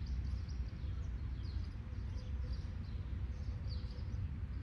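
Small birds chirping: short, high, falling notes repeated several times a second, over a steady low background rumble.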